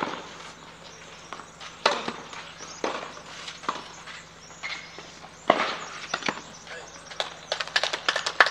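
Tennis ball struck with rackets in a rally, sharp pops about once a second, then a quick run of lighter taps near the end.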